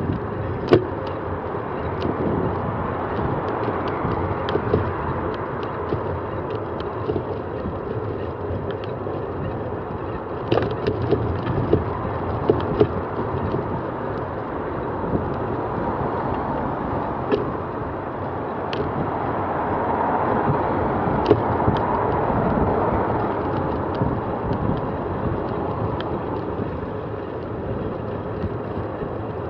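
Ride noise from a bicycle-mounted camera: tyres hissing on a wet cycle lane and air rushing past, with scattered sharp clicks and knocks from the mount over bumps. Road traffic swells and fades around twenty seconds in.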